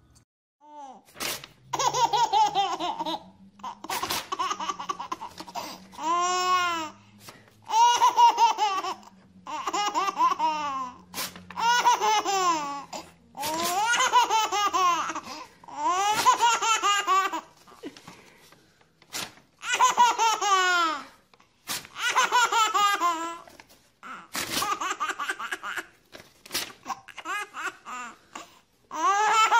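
A baby laughing in repeated bursts, each a second or so long, about every two seconds, with brief sharp noises in some of the gaps between the laughs.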